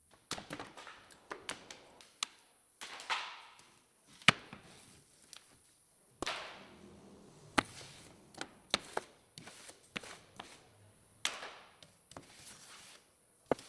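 Irregular knocks and clacks of melamine-faced MDF offcuts being handled and cleared off the CNC router table. Three longer swishes, each fading over about a second, come as scraps slide across the bed.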